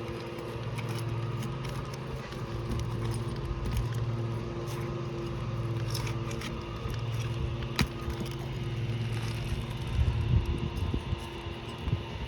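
A roof snake (shingle ripper) working under asphalt shingles, giving scattered scrapes, crackles and clicks as it breaks the seal strip and works at the nails, with a sharper click about eight seconds in. Under it runs a steady low hum from a nearby motor.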